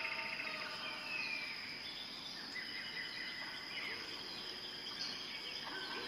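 Tropical forest ambience: a steady high insect drone under many overlapping bird chirps and whistles, some of them gliding in pitch.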